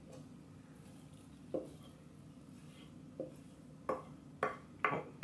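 Wooden spoon knocking and scraping against a mixing bowl as oat mixture is scraped out into a baking tray: a few separate short knocks, coming closer together in the last second or so.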